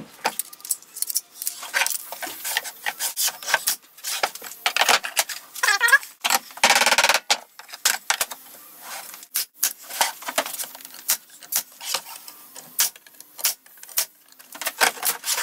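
Pneumatic stapler firing and melamine drawer panels knocking and clattering as a drawer box is assembled: a string of sharp clicks and knocks, with a short wavering squeak and a noisier stretch about six seconds in.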